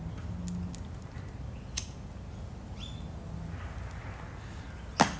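Disposable lighter clicked to light a cigarette: a sharp click about two seconds in and a louder one near the end, with a faint breathy hiss in between.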